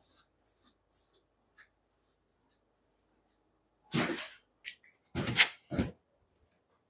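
Soft shuffling footsteps in slippers, then cardboard boxes being set down and slid on the floor: one longer scrape about four seconds in, then a few short, loud scrapes and knocks a second later.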